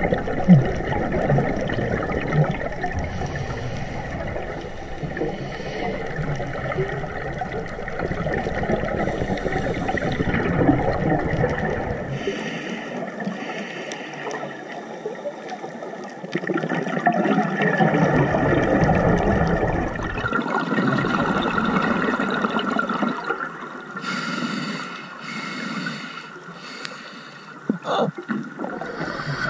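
Scuba diver breathing through a regulator underwater: long, loud stretches of gurgling exhaled bubbles alternate with quieter spells between breaths. A sharp click comes near the end.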